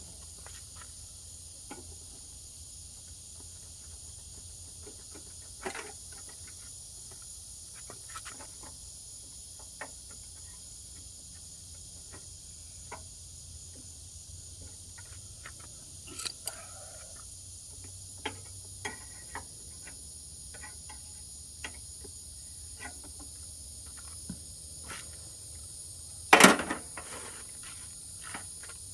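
Steady high-pitched chirring of insects, with scattered small clicks and knocks of parts and tools being handled while the seat safety switch on a riding mower is swapped, and one louder clank near the end.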